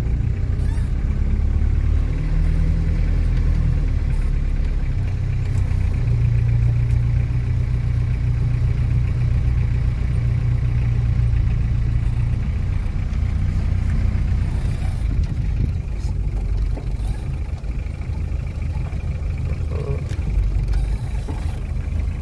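Vehicle engine and tyre rumble heard from inside the cabin while driving over rough, dry ground; the engine note rises and falls briefly a few seconds in, then runs steadily.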